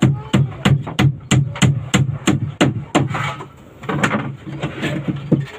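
Hammer blows on a small wooden boat's plywood hull: sharp knocks about three a second for the first three seconds, then a few more, more spaced out, near the end.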